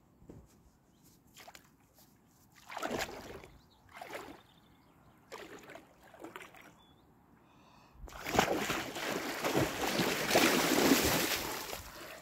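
A person wading into a pond, legs sloshing through the shallow water in a few separate splashes, then about eight seconds in a loud stretch of splashing lasting some four seconds as he ducks under in the cold spring water.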